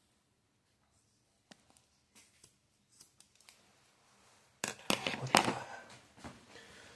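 Scissors snipping and trimming loose bits of nylon paracord: a few light clicks, then a louder run of snips and handling noise about halfway through.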